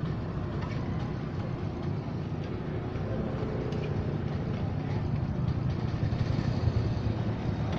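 A steady low rumble with a few faint metal clinks from the ladle and griddle.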